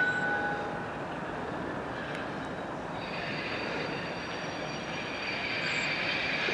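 Class 37 diesel locomotive with its English Electric V12 engine running as it moves off, a steady rumble, with a high-pitched wheel squeal coming in about three seconds in and growing slightly louder.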